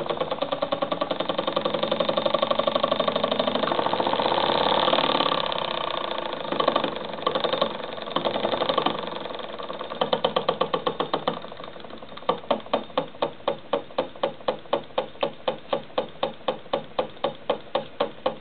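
Homemade solenoid engine, built from a car starter-motor solenoid switched by modified automotive ignition points, running with a sharp clack on every stroke. It runs faster and louder in the first few seconds, goes uneven midway as the throttle lever is worked, then settles to a slower, steady clacking about three times a second.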